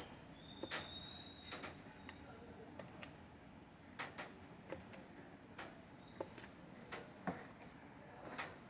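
Wireless intrusion alarm panel giving four short high-pitched beeps about two seconds apart, with a steady electronic tone lasting about a second near the start. Scattered light clicks and taps of handling and button presses run between the beeps.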